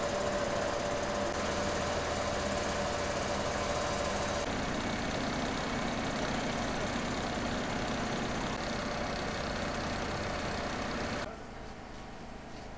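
Steady running of idling fire-engine engines, with a constant hum over broad noise. It drops to a quieter background near the end.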